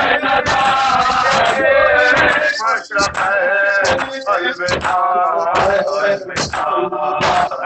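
A man chanting a noha (mourning lament) into a microphone, with a group of men beating their chests (matam) in time, each slap a sharp strike in a steady rhythm.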